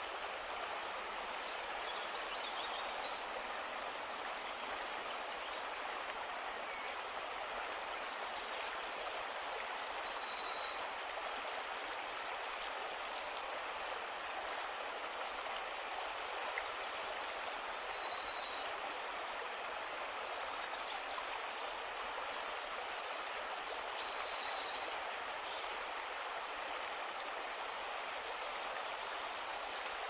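Birds calling in short, high, rapid chirping phrases, several times through the middle, over a steady outdoor hiss.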